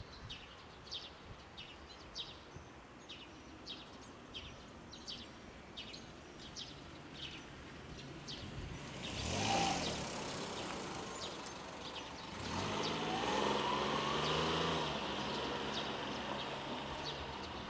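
Two motor vehicles passing: the first swells and fades about nine seconds in, and a second one with a low engine hum goes by from about twelve to fifteen seconds. Under them, a bird chirps over and over, a couple of short high chirps a second.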